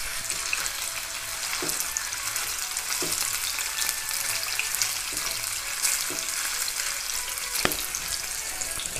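Cauliflower florets sizzling steadily in hot oil in a pan as they fry to a light golden colour, with a few knocks of a silicone spatula against the pan as they are turned.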